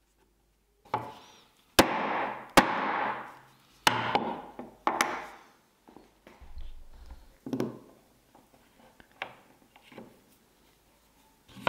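Hammer blows on a corner chisel, driving its square steel blade into a wooden board: four loud, sharp strikes in quick succession, each followed by a short fading hiss, then lighter knocks and taps as the chisel is set again, and one more strike at the end.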